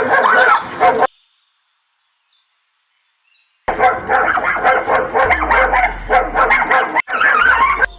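Dog barking over and over in two stretches, with a gap of near silence of about two and a half seconds between them.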